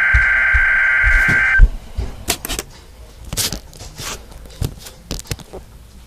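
A weather radio's electronic alert tone sounds steadily at a fixed pitch, marking the start of the weekly EAS test, and cuts off about a second and a half in. It is followed by a few seconds of scattered light clicks and knocks.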